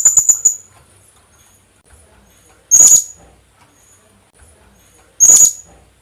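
Philippine hanging parrot (kulasisi) calling in shrill, high-pitched notes. A quick run of about five notes comes first, then a single short call about every two and a half seconds.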